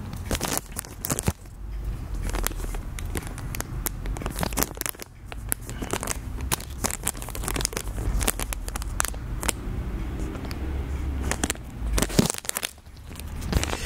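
Crinkly plastic pouch of a squishy toy being handled and torn open, an irregular run of crackling rustles and sharp clicks.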